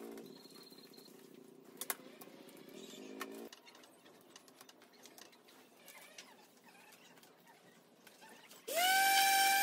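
Faint clicks and light handling noise, with soft pigeon-like cooing in the first few seconds. Near the end, a handheld electric sander starts up with a quick rising whine and then runs steadily and loudly.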